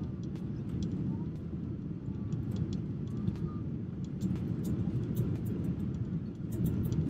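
Airliner cabin noise: a steady low rumble as the jet rolls along the ground, with frequent faint clicks and rattles.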